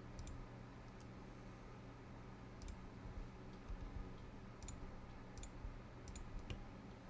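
Computer mouse clicking a handful of times, single sharp clicks spaced a second or more apart, over a faint steady low hum.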